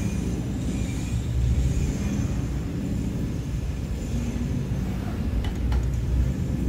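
JWEI digital flatbed cutter running as its cutting head moves over the table cutting fabric: a steady low machine rumble, with a few faint ticks about five and a half seconds in.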